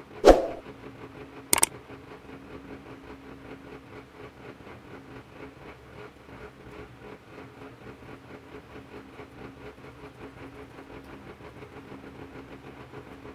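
Steady mechanical hum with a faint, even pulse. A loud knock comes just after the start, and a sharp click about a second and a half in.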